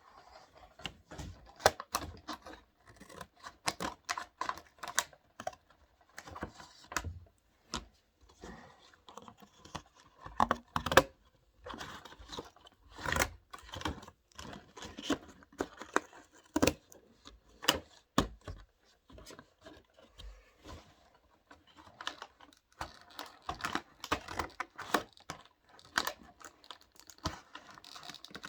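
Scissors cutting crafting material: irregular snips and clicks, mixed with crinkling and rustling as the pieces are handled.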